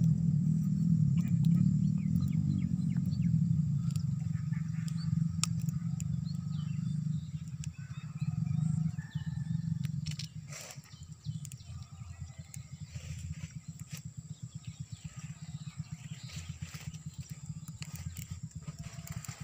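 Motorcycle engine running, loud at first, then dropping about halfway through to a quieter, steady low putter. Faint bird chirps are heard over it.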